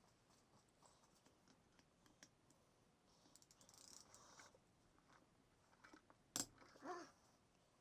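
Hand tools being handled over a motorcycle engine's cylinder head: faint scattered clicks and a short rattle, then one sharp metallic clink about six seconds in as the socket and breaker bar go onto a head bolt. A brief creak follows it.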